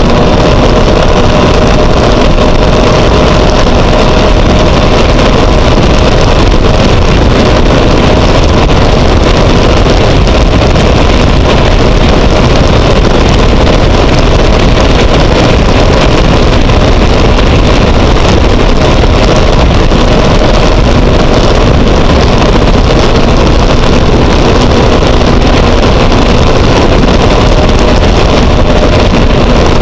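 Cat gas turbine of a Sanger race boat with Arneson surface drive running steadily at speed: a thin high turbine whine and lower steady tones over a dense rush of wind and water noise.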